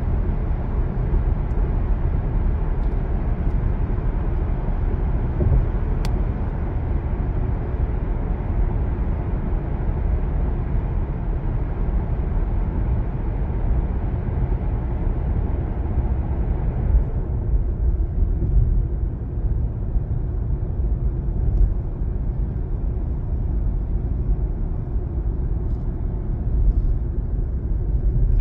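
Steady road and tyre noise with a low rumble from a car driving on an expressway. About 17 seconds in, the higher hiss drops away as the car leaves the tunnel, and the rumble continues in the open. A single brief click about 6 seconds in.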